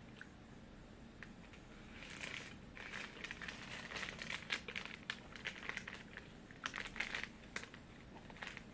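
Plastic snack wrapper crinkling and rustling as it is handled, in a run of irregular crackles starting about two seconds in.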